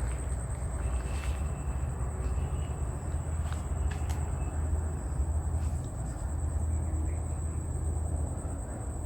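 Steady, high-pitched insect trill, cricket- or cicada-like, going on without a break over a constant low rumble.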